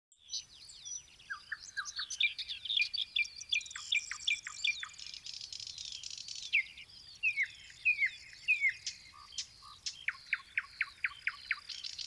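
Several songbirds singing, with runs of quick, sharply falling whistled notes and chirps, and a buzzy high trill in places.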